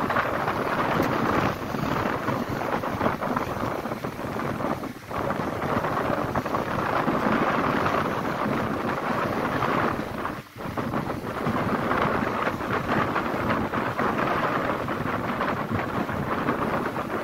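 Wind buffeting the microphone on a moving ferry's open deck, mixed with the rush of the water, swelling and fading with two brief lulls about five and ten seconds in.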